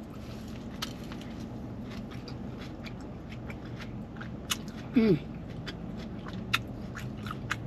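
Close-up chewing and mouth sounds of a person eating a burrito, with many small wet clicks and smacks over a steady low hum. A short falling "mm" comes about five seconds in.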